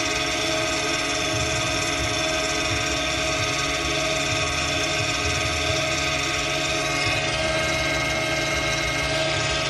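Electric parking brake motor in a BMW F10 M5's rear brake caliper running in service mode, a steady whine as it winds the caliper piston back to free the pads.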